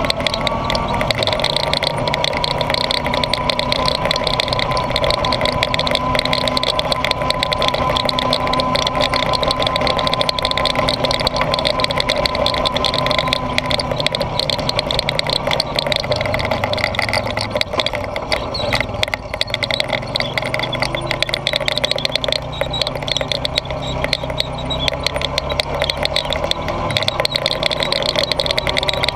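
Honda ATV engine running steadily as the quad rides over a grassy trail, heard on board with a constant engine drone. The engine eases off briefly about two-thirds of the way through, then picks up again.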